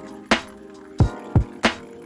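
Background music with sustained tones and a steady beat of sharp drum hits.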